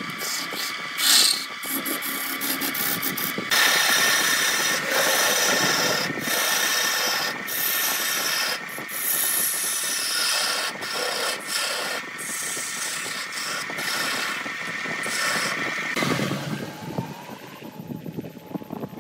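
Wood lathe turning a wooden vase blank while a hand-held gouge cuts into it, a rough scraping, rasping cut with many short catches, over the lathe motor's steady whine. Near the end the cutting drops away and the sound gets quieter.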